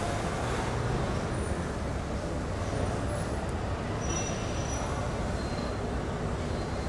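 Steady rumble of road traffic, with a few faint high tones about four seconds in.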